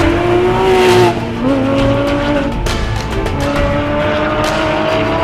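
Porsche 911 rally car's flat-six engine accelerating past and away up the stage. Its note climbs, drops about a second in as it shifts up, then climbs steadily again.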